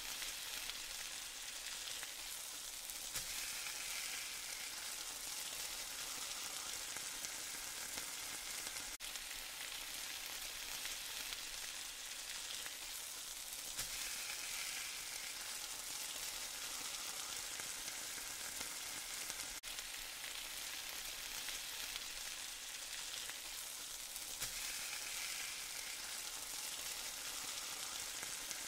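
Besan pudla (gram-flour pancake) sizzling as it fries in the pan: a steady frying hiss that swells slightly about every ten seconds.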